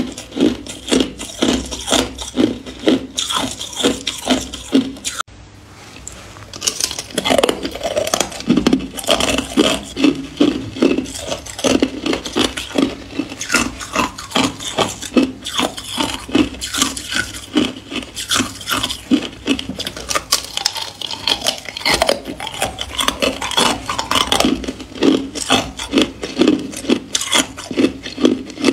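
Close-miked crunching of hard ice being chewed: a steady run of crisp crunches several times a second, with a short quieter break about five seconds in before the chewing picks up again.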